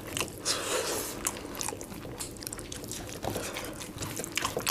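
Hand-eating: fingers squishing rice mixed with egg masala and dal against metal plates, and mouths chewing, giving soft, irregular wet clicks and squelches.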